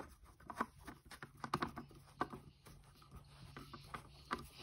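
Screwdriver tightening the screws that fix a ceiling fan blade to its blade arm: faint, irregular clicks and ticks, several a second.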